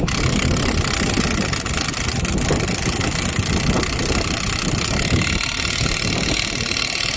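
Semi truck's diesel engine idling steadily, with an even hiss over it.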